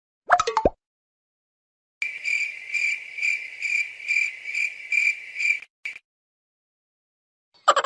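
Cricket chirping sound effect: a high, pulsing chirp repeated about twice a second for several seconds, the classic comedy 'awkward silence' cue. A brief tonal blip comes just before it, near the start.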